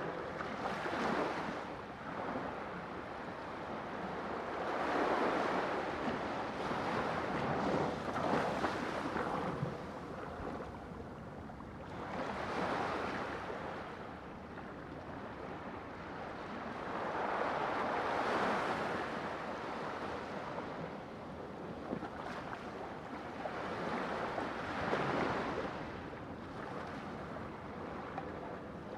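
Sea waves breaking and washing in, swelling and fading about every four to six seconds, with some wind.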